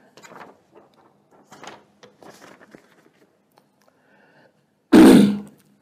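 A man's short, loud cough or throat-clear close to the microphone about five seconds in, after a pause filled with faint small rustles and clicks.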